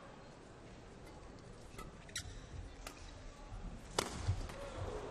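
Badminton rally: several sharp cracks of racket strings hitting the shuttlecock, the loudest about four seconds in, with low thuds of the players' feet landing on the court floor.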